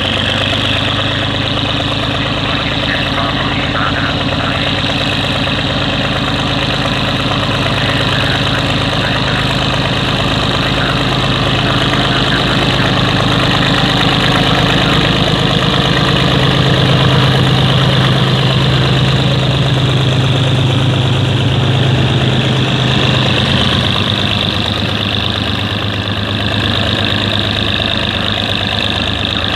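GE GEK diesel-electric locomotive No. 4037 running steadily as it hauls oil tank wagons slowly past. Its engine swells to its loudest a little over halfway through as the locomotive draws alongside, then eases as the tank wagons roll by.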